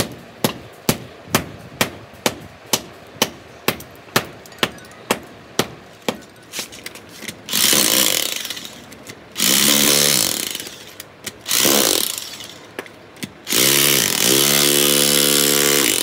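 A hand hammer strikes a concrete floor about twice a second for the first seven seconds or so. Then an electric demolition hammer breaks up the concrete in several runs of about two seconds each, the longest near the end, its motor whine rising as each run starts.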